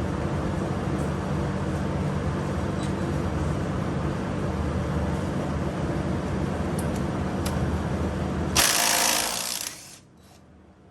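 Steady mechanical hum with a low drone. About eight and a half seconds in, a loud rushing burst lasting about a second, after which the hum stops abruptly and it goes quiet.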